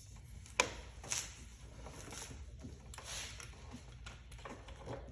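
Hand work on a throttle body being bolted onto an engine: one sharp click a little over half a second in, then several soft scrapes and rustles as the bolts are threaded in finger tight.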